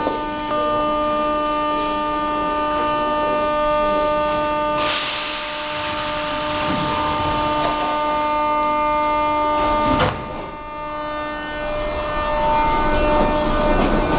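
Moscow Metro 81-717/714 train standing at the platform with a steady multi-tone electrical hum. About five seconds in, a loud hiss starts and lasts about five seconds; it ends with a sharp clunk, and the hum stops with it. Near the end the train's running noise builds as it starts to pull away.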